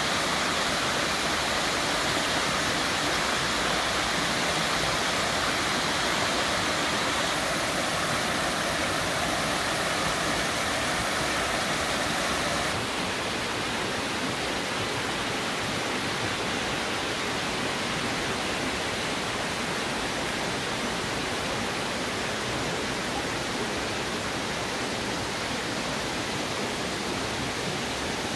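Small waterfall pouring over rock ledges into a pool, a steady rush of water. About halfway through, this gives way to the softer, slightly quieter flow of a shallow stream running among boulders.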